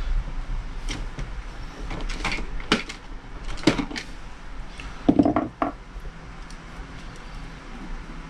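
Clicks and knocks of small plastic and metal parts being handled as the fire control housing is worked out of a KJ airsoft M9's plastic lower frame. A few separate sharp strikes, the loudest about three to five seconds in.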